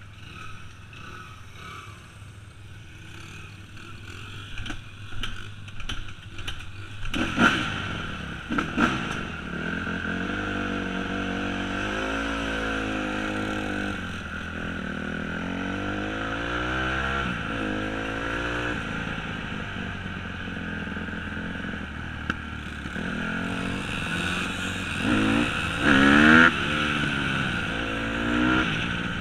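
Dirt bike engine heard from on board, revving up and dropping back over and over as the bike accelerates along. It is quieter at first and gets louder about a third of the way in, with a few sharper blips of throttle.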